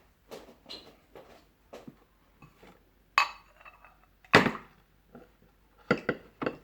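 A glass jar and a bowl being handled and knocked together: a run of light knocks, then two louder clinks that ring briefly about three and four seconds in, and a few quick knocks near the end.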